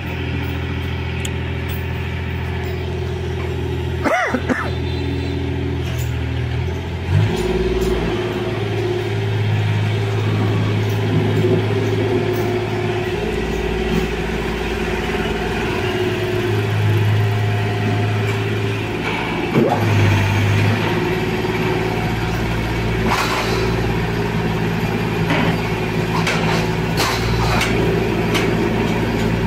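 Engine-driven hydraulic power unit of a concrete pile-press rig running steadily, its note shifting every few seconds as the load changes. A brief falling squeal comes about four seconds in.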